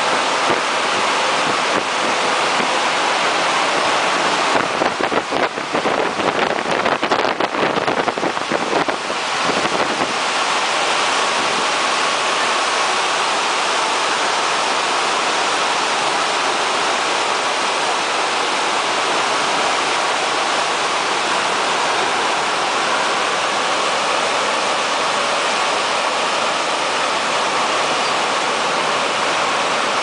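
Drying blowers of a tepo-auto TP901 tunnel car wash running: a steady rushing of air, with a spell of uneven fluttering buffeting from about five to ten seconds in.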